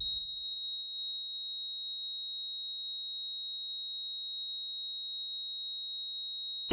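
A steady, high-pitched electronic tone held without change, over a faint low hum. It cuts off suddenly as the music starts.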